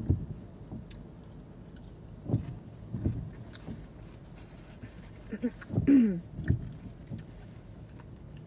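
A person chewing a bite of crispy fried chicken burger with mouth closed, with a few soft low thumps, and a short voice sound about six seconds in.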